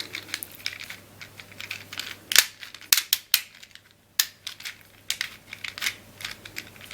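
Plastic tiles of a Leesho tile-sliding puzzle being slid and clicked into place as the puzzle is scrambled: irregular sharp clicks with faint rubbing between them.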